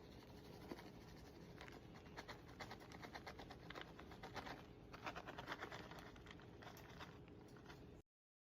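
Faint, light scratching and tapping, like small kitchen handling sounds, then the sound cuts out to dead silence near the end.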